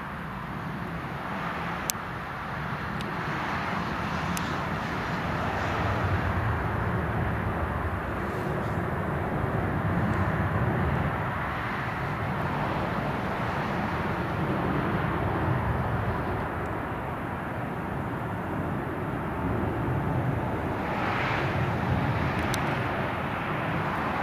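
Jet engines of a large twin-engine airliner climbing out overhead: a steady jet roar that grows louder a few seconds in and then holds.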